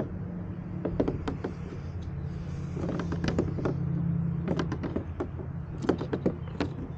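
Short clusters of sharp clicks and light knocks from handling the bungee cord and fittings on a plastic kayak's deck, over a steady low hum.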